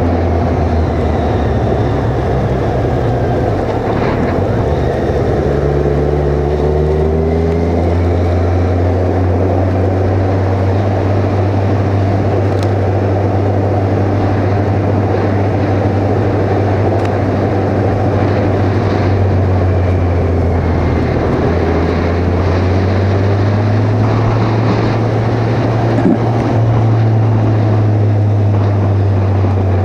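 Kawasaki Ninja 1000's inline-four engine running under way, heard from a helmet-mounted action camera over a steady low rumble. Its pitch rises as it speeds up, about six seconds in and again past twenty seconds.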